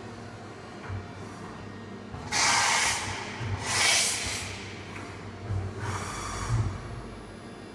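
AXA VARIO vertical machining centre letting out three short hissing jet blasts inside its enclosure, a little over two seconds in, around four seconds and again near six seconds, over a low steady machine hum.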